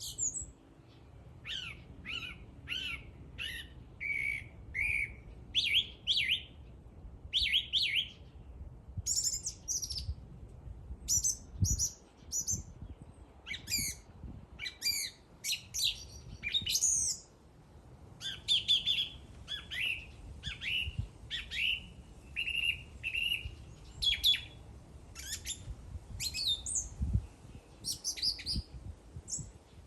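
A songbird singing a long, lively string of short chirping notes in quick repeated phrases, with only brief pauses between them.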